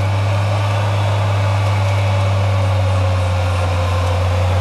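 Off-road 4x4 engine running steadily at an even pitch, with no revving.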